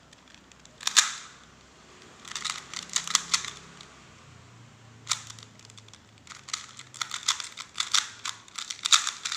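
Plastic clicking and clacking of a 2x2 Rubik's Cube being turned quickly during a speed-solve, in bursts of rapid turns with short pauses, thickest in the last few seconds.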